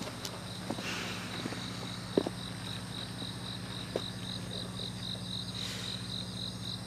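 Crickets chirping in an even pulsing rhythm, about three chirps a second, that comes in about two seconds in, over a low steady hum and a few faint soft taps.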